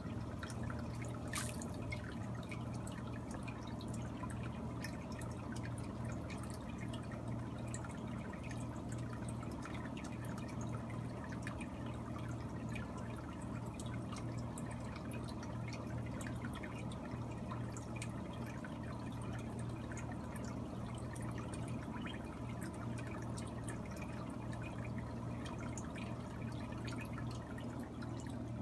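Water running out of a PVC return pipe into an aquaponics fish tank: steady splashing and dripping at the surface, over a steady low hum.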